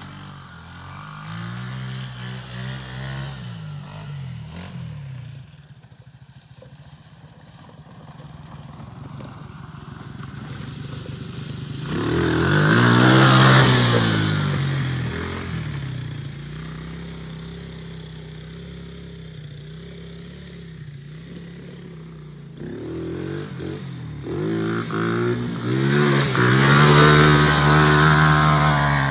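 A KXD 125 cc ATV's small single-cylinder four-stroke engine revving up and down under load, settling to a steadier lower speed midway, then revving hard again near the end as the quad climbs a loose dirt slope.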